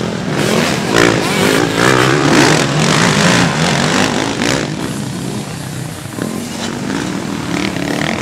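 Motocross dirt bike engines running and revving on the track, the pitch rising and falling with the throttle.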